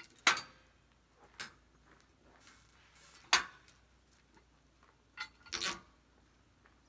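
A few sharp, separate knocks of steel and wood, then a short clattering run of them about five seconds in, as a Douglas fir log is worked into place on a portable sawmill bed with a cant hook.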